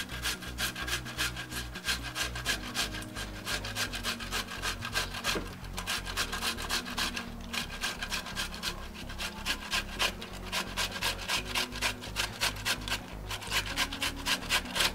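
Ripe tomatoes grated on the coarse side of a metal box grater: a steady run of quick rasping strokes, several a second.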